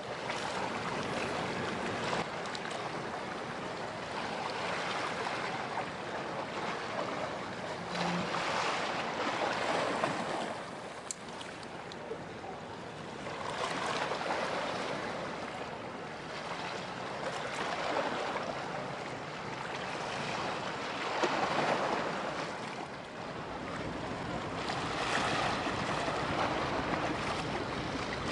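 Wind and water noise across open harbour water, a steady hiss that swells and eases every few seconds. No engine note or voice stands out.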